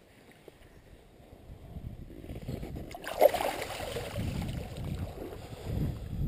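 Sharp splash of water about three seconds in as a released trout bolts away through shallow creek water, followed by continued splashing and sloshing.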